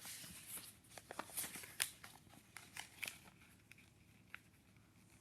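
A sheet of printer paper being handled and folded: soft rustling and sharp little crackles as the fold is pressed, most of them in the first three seconds, sparse after that.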